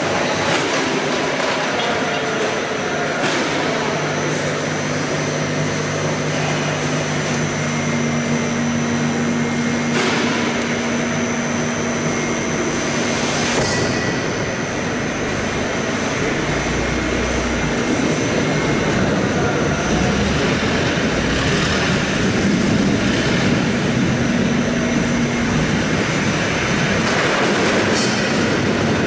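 Apple-processing machinery running: a continuous mechanical din with steady hums that start and stop and a few sharp metallic clacks and squeals.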